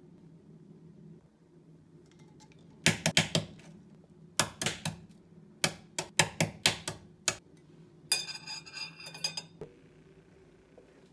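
Egg shell tapped against a wooden counter to crack it: clusters of sharp clicks in quick succession, followed by a brief crackling scrape.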